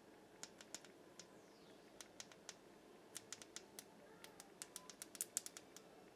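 A Samsung phone's power button being pressed over and over, giving a string of short, sharp, irregular clicks over a faint room hiss, with the phone failing to turn on.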